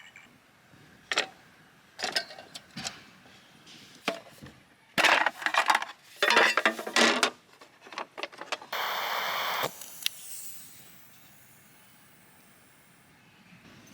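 Camp gear and tableware being handled: scattered knocks and a dense burst of clattering, then a steady hiss lasting about a second that trails off.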